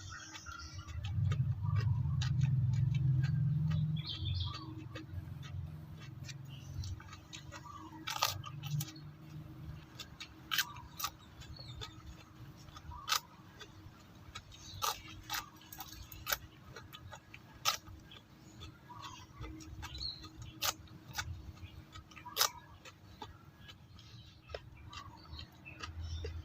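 Crunchy chewing of raw bitter gourd close to the microphone: irregular sharp crunching clicks throughout, with a low muffled sound strongest in the first few seconds.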